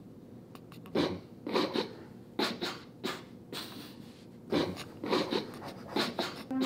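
Stifled laughter: short, uneven bursts of breath forced out through the nose and a hand-covered mouth, about ten of them, by someone trying not to laugh.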